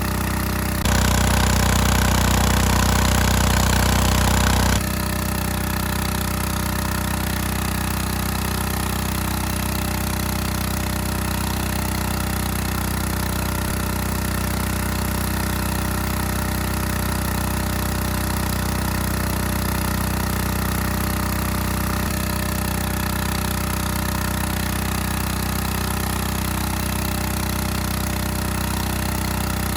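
Small engine-driven water pump running steadily, draining a puddle. A louder stretch with added hiss runs from about one to five seconds in.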